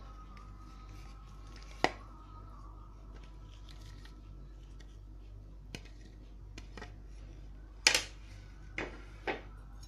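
Scattered sharp clicks and knocks of sliced vegetables and a plate against an aluminium pressure cooker as they are tipped in by hand, about five in all, the loudest near the end.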